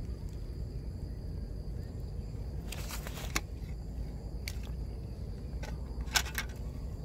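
Handling noise at a wire-mesh fish trap: several sharp clicks and knocks as hands and fish work against the wire, the loudest about six seconds in, over a low steady rumble.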